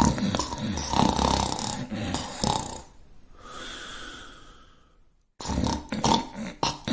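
Loud snoring: a snore lasting about three seconds, then a softer breath out, then another loud snore starting about five and a half seconds in.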